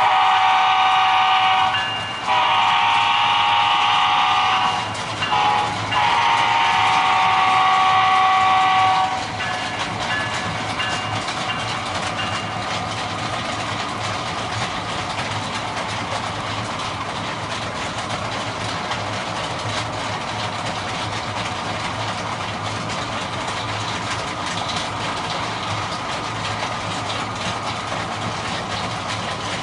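Locomotive air horn with several chime tones sounding the grade-crossing pattern of long, long, short, long. It is followed by the steady rumble of the train running along the rails.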